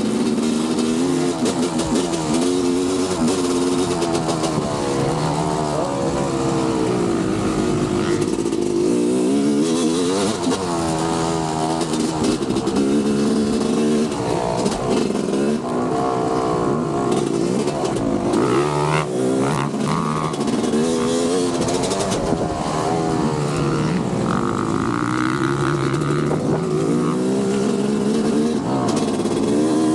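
Several motocross bikes running on the track at once, their engines revving up and dropping off over and over in overlapping rising and falling pitches.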